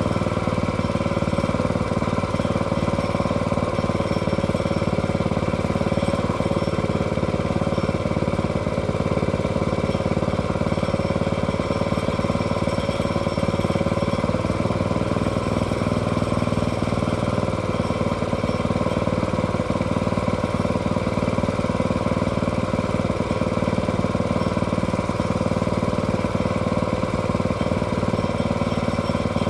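Small engine of a log-milling sawmill running steadily, with a continuous mid-pitched tone over it.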